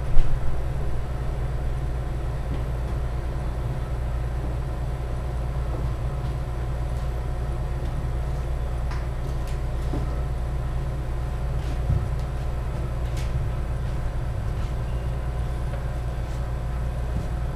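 A steady low mechanical hum fills the hall, with a few sharp racket-on-shuttlecock hits: the loudest right at the start, fainter ones scattered later.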